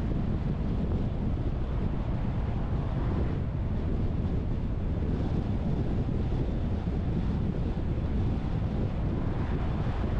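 Steady low rumble of wind and road noise from a car driving along, with no marked changes.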